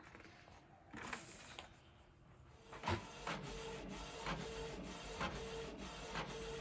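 Canon PIXMA TS3160 inkjet printer starting a test print: its paper feed and print-head mechanism start up about three seconds in, whirring with a steady run of regular clicks, about three a second.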